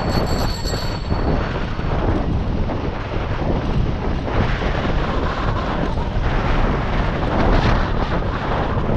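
Wind buffeting the microphone of a camera on a bicycle riding downhill, a loud, steady rush strongest in the low end. A brief high ringing tone sounds over it during the first second or so.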